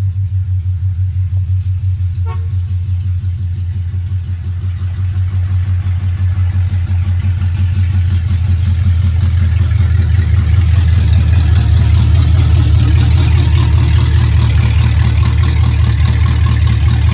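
Car engine running with a loud, low, rapidly pulsing rumble that grows louder and harsher after about eight seconds. The car has no exhaust pipes fitted yet and is waiting for the exhaust shop.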